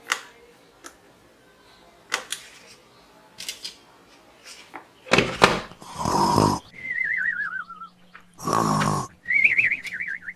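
Toy electronic scoring target's sound effect set off by hits: a few sharp clicks and knocks, then twice a short raspy, growl-like burst followed by a warbling electronic whistle that slides down in pitch.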